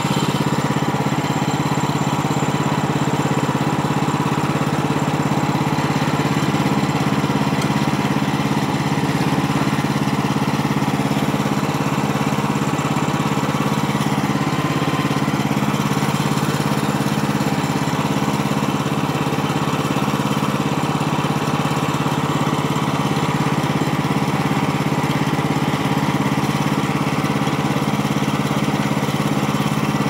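Woodland Mills HM130MAX bandsaw mill's gasoline engine running at a steady, unchanging speed.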